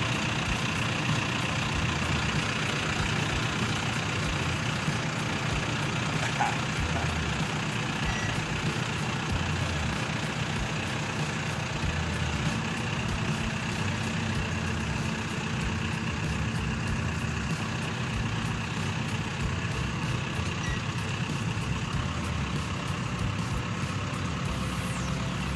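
John Deere tractor engine running steadily as the tractor creeps forward at low speed, pulling a water-wheel transplanter.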